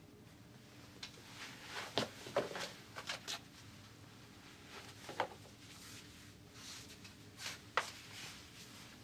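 Quiet small room with a few soft rustles and light knocks from a person moving about, clustered about two to three seconds in, and one sharper knock just before he sits down on a bed near the end.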